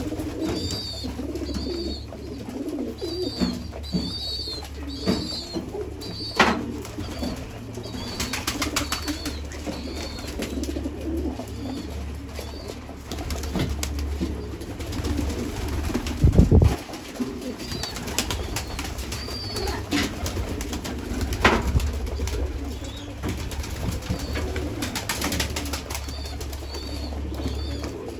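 A flock of domestic pigeons cooing steadily, with wing flaps and runs of short, high chirps. A loud low thump comes about halfway through.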